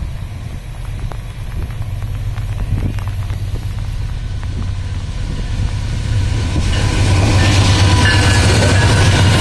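Diesel locomotives of a Vale iron-ore train running by at close range: a steady low rumble that grows louder about seven seconds in as the lead locomotive passes.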